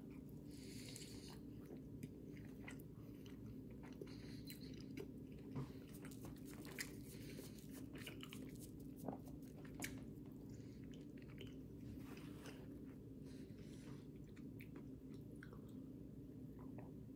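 Faint bite into a glazed donut followed by chewing, with scattered small mouth clicks, over a steady low hum.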